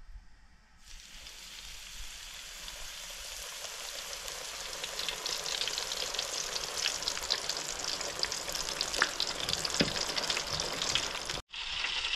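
Batter-coated frog legs frying in hot oil: a sizzle that starts suddenly about a second in and grows louder, broken off for a moment near the end before it carries on.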